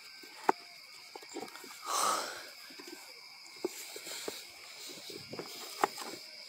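Scattered light clicks and rustling from the phone being handled close to the microphone, with one short breathy hiss about two seconds in.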